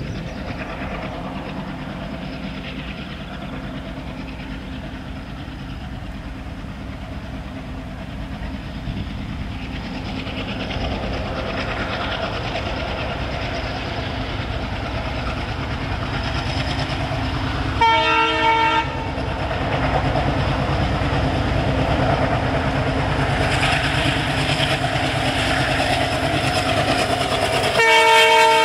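Diesel locomotive approaching, its engine and the train's running noise growing steadily louder. Its multi-tone horn sounds once, about a second long, some two-thirds of the way through, and again near the end as the locomotive comes close.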